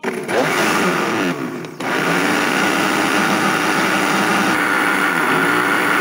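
Electric kitchen blender running, mixing a liquid cake batter of eggs, oil, sugar and milk. It starts sharply and dips briefly about a second and a half in, then runs on steadily.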